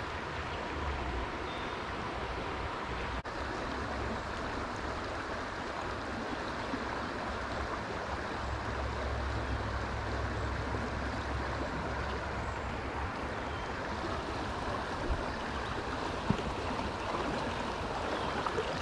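Small trout creek running steadily, an even rush of flowing water, with a couple of faint knocks near the end.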